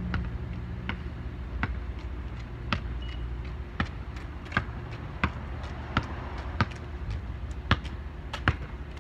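A basketball being dribbled on asphalt: about a dozen sharp bounces, roughly two-thirds of a second apart. A low rumble of passing traffic eases off within the first second.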